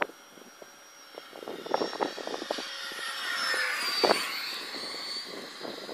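Electric ducted fan of a model F-22 Raptor jet (70 mm ten-blade Changesun fan on a BL-32 motor) flying past. The whoosh swells, is loudest about four seconds in, then fades, and its high whine drops in pitch as it goes by.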